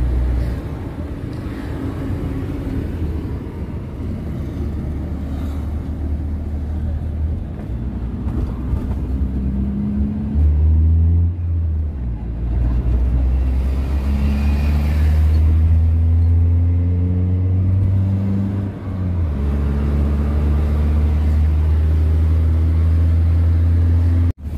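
Car engine and tyre noise inside the cabin at highway speed: a steady low rumble, with the engine note rising gently at times from about ten seconds in.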